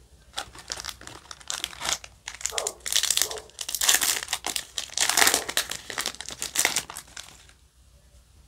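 Foil wrapper of a Yu-Gi-Oh! booster pack crinkling and tearing as it is ripped open by hand. The crackle is loudest in the middle and stops about a second before the end.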